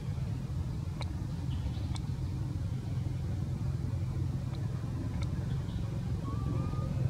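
Steady low hum of an idling engine, with a few faint clicks and a short high whistle near the end.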